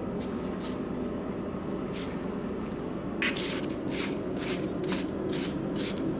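Blacksmith's wire brush scrubbing scale off a red-hot twisted square steel bar held in a vise. A few light strokes come first, then steady back-and-forth scraping from about three seconds in, at roughly three strokes a second, over a steady low hum.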